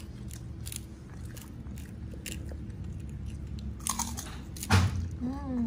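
Baby macaque biting and chewing crisp kerupuk crackers: irregular crunches, with one louder crunch near the end.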